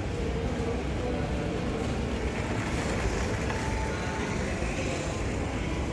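Steady background noise of a busy shopping-centre hall: a low, even hum with faint, indistinct voices.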